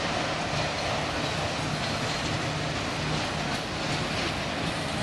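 Empty autorack freight cars rolling past on the rails: a steady rumble of steel wheels on track with some clickety-clack.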